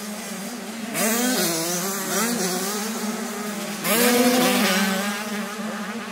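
Two-stroke 85cc motocross bike engines revving hard, their pitch rising and falling as the riders accelerate and shift. The sound gets suddenly louder about a second in and again near four seconds.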